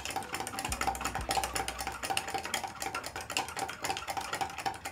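A spoon stirring yeast and sugar into water in a measuring jug, clicking rapidly and steadily against the sides of the jug.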